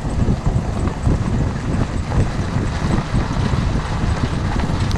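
Four-wheel drive rolling along a gravel road: a steady rumble of tyres crunching over the gravel, with wind buffeting the microphone.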